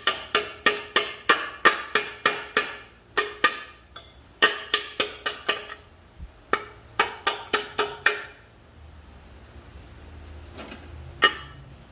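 Hammer tapping a brass punch to drive the input-shaft bearing race into an M5R1 transmission case: runs of light metallic strikes, about three to four a second, each ringing briefly, with pauses between the runs and one lone strike near the end.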